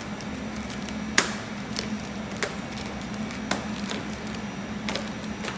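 Stand mixer motor running with a steady hum while the beater works a cream cheese batter. Over it come several sharp snaps and crackles as a frozen chocolate bar is broken into pieces in its wrapper; the loudest is about a second in.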